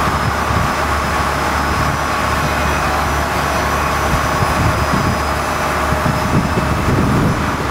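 Passenger boat's engines running steadily under way, a constant low drone mixed with the rush of water churned up in the wake.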